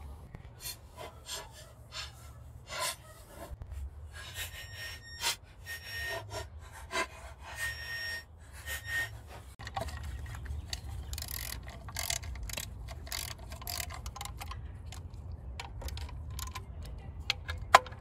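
Scattered small clicks, taps and scraping of a tool and bolts against the plastic engine cover as its four bolts are put in and tightened, over a steady low rumble.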